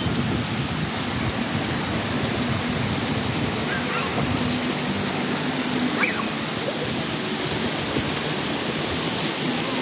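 Water showering steadily from an overhead rain fountain onto wet paving and a drain grate: an even, unbroken hiss of falling drops.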